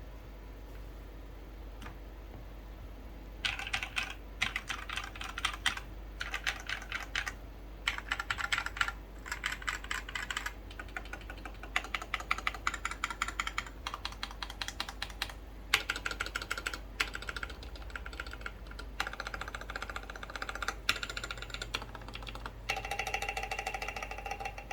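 Typing on a wooden-case mechanical keyboard with lubed black linear switches and SA profile keycaps. Rapid runs of keystrokes start about three and a half seconds in and are broken by short pauses. A steady low background hum runs underneath.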